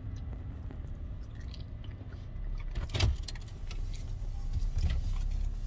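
Steady low rumble of a car's engine and road noise heard from inside the cabin while driving, with light rattles and a single sharper knock about three seconds in.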